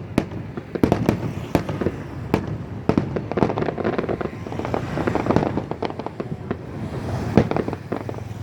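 Aerial fireworks display going off, a dense irregular string of sharp bangs and crackles, with the loudest bang about seven seconds in.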